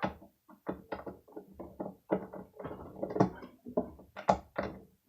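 Irregular metallic clicks and clinks from a hand-held manual impact driver and its steel bits being handled and fitted, with a few louder knocks about two, three and four seconds in.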